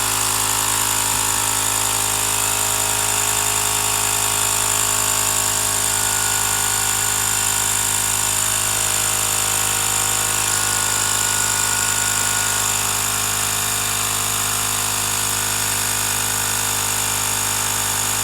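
Ryobi battery-powered tyre inflator running steadily, its small compressor pumping air into a bicycle tube through a Schrader valve.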